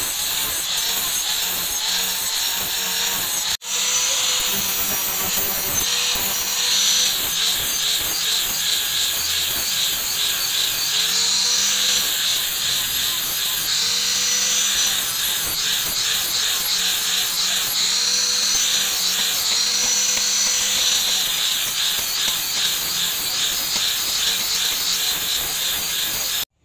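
Power tool running with a loud grinding hiss, its motor note sagging and recovering again and again as it is pressed to the work. It cuts out abruptly near the end.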